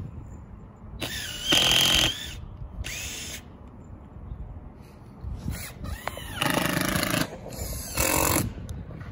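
Cordless drill driving screws through OSB roof decking, whirring in several short runs of about a second or less, with the motor pitch rising and falling as each screw goes in.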